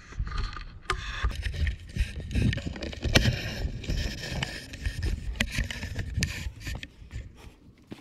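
Wind buffeting an action camera's microphone in an uneven rumble. Over it come many sharp scuffs and knocks as hiking boots and the camera pole scrape over granite rock.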